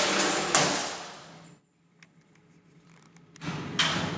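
A water-filled 26-gauge steel open-head pail dropped 83 inches in a drop test slams onto the steel floor plate once, about half a second in, and the noise dies away over the next second. Near the end there is a knock as the dented pail is handled.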